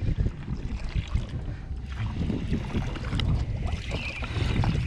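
Wind rumbling steadily on the microphone on an open boat at sea, with a few faint clicks from hands working a conventional fishing reel.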